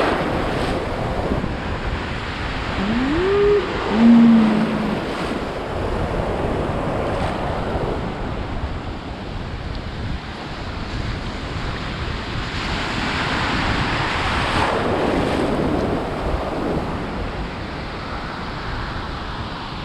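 Ocean surf washing and breaking around someone standing waist-deep in the water, with wind buffeting the microphone. A wave surges up about two-thirds of the way through. About three seconds in, a short tone rises in pitch and then holds briefly.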